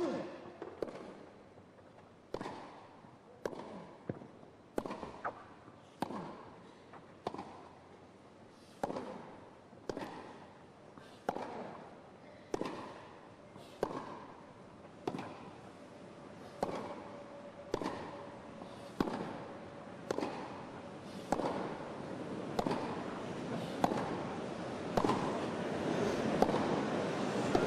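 Tennis ball struck back and forth by racquets in a long rally, a sharp hit about every 1.2 seconds. A crowd's noise swells over the last several seconds.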